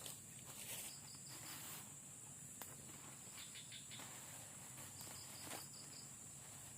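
Night insects, crickets among them: a faint, steady high-pitched drone, with short runs of rapid chirps three times. A few faint clicks or rustles come in between.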